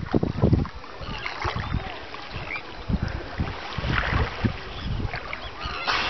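Wind buffeting the microphone over choppy sea water, with irregular low thumps.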